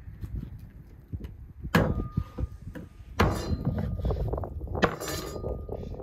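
Meat cleaver chopping through a raw guinea fowl on a wooden cutting board: three heavy chops about a second and a half apart, each leaving a short ring from the blade.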